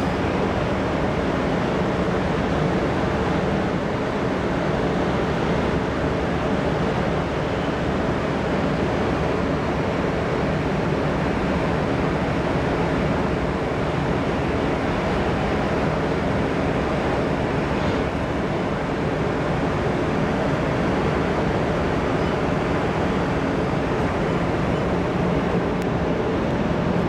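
Steady drone of the car ferry Bizan's engines and on-board machinery, heard from its open deck while berthing: a constant low hum with an even rushing noise over it.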